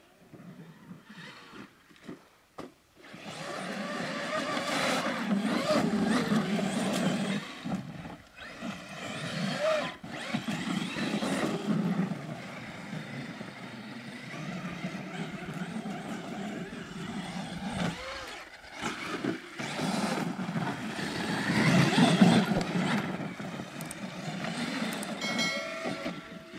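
Traxxas X-Maxx electric RC monster truck driving on sand and dirt, its motor whine and tyre noise rising and falling with the throttle, with brief lulls. Near the end a short electronic chime sounds.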